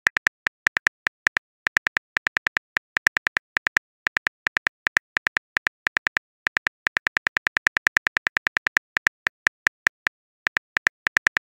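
Phone keyboard typing sound effect: quick, irregular key clicks, several a second, in runs with short pauses, as a chat message is typed out letter by letter.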